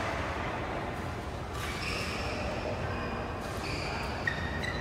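Badminton hall ambience: a steady low rumble with short, high shoe squeaks on the court in the second half and a sharp tap about four seconds in.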